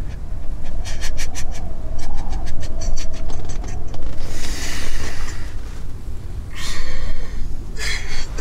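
A young man panting and gasping in distress: a run of quick, catching breaths, then two long, hoarse breaths, over a steady low rumble.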